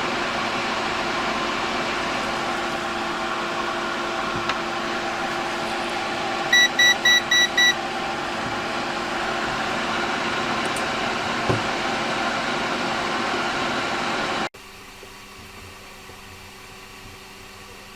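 Steady fan-like whoosh of electronics bench equipment, with a quick run of five short electronic beeps about seven seconds in; the whoosh cuts off abruptly about fourteen and a half seconds in, leaving a much quieter hum.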